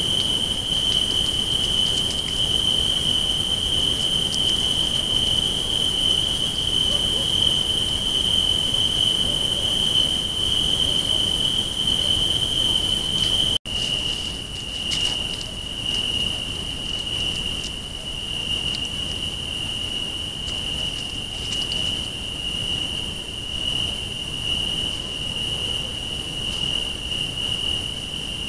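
Night chorus of crickets: a steady, unbroken high trill, with a low hiss underneath. It drops out for an instant about halfway through, then carries on at a slightly lower pitch.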